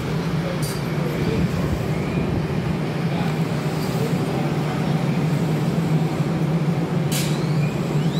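DART light rail train standing at the platform, its equipment giving a steady hum. A short hiss comes about seven seconds in, followed by a brief rising tone near the end.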